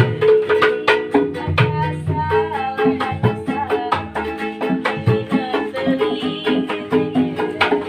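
Street busker music: a plucked string instrument and a hand drum playing a quick, busy rhythm, with a singing voice over it.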